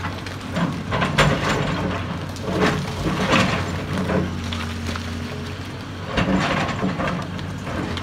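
Tracked excavator's diesel engine running steadily under load while its bucket breaks rock off a bluff, with loose rock cracking and clattering down in several sharp bursts, the loudest about three seconds in and again around six seconds.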